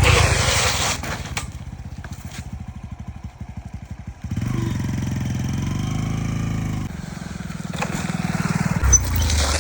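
A small engine running with rapid, even firing pulses. It grows louder and steadier from about four seconds in, drops back after about seven seconds, and builds up again near the end.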